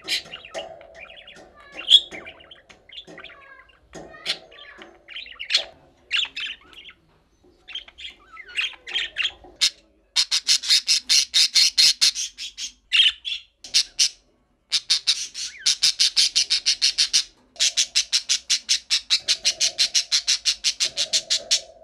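Budgerigars calling: scattered chirps and warbling for about the first ten seconds, then long runs of rapid, harsh repeated calls, about five a second, broken by a few short pauses.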